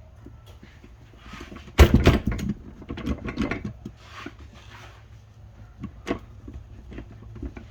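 Metal transmission parts knocking and clinking as the gears and shift forks of a Honda Civic manual gearbox are handled and set into the case. There is a dense cluster of knocks about two seconds in and a single sharp click near the end.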